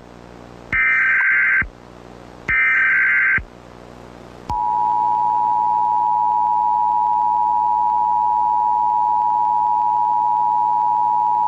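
Emergency Alert System signal: two short screeching digital header bursts, then about a second later the long, steady two-tone attention signal, held loud to the end. It marks the start of an emergency broadcast.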